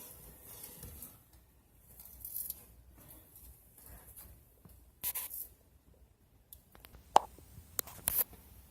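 Handling noise: scattered rustling, then a cluster of sharp clicks and knocks near the end.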